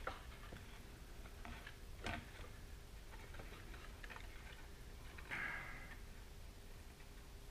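Quiet handling noises: light, irregular clicks and taps as rocket airframe tubes and wiring are fitted together by hand, with a brief scraping rustle about five seconds in.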